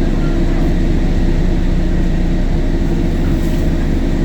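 The diesel engine of a Temsa Avenue LF city bus, a DAF Euro 5 unit, running at a steady speed, with a stack of low engine tones and road noise above them.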